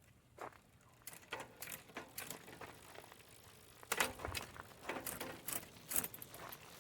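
Quick, irregular mechanical clicking and light rattling, growing louder about four seconds in.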